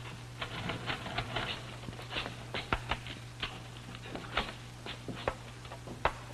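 Irregular light clicks and taps, several a second, over a steady low hum.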